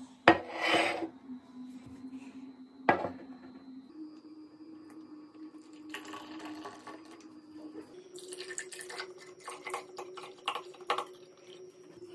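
A ceramic plate is set down on a table with a sharp knock, followed by a second knock. About halfway through, water is poured from a jug into a ceramic mug, trickling and splashing with many small drips and clinks.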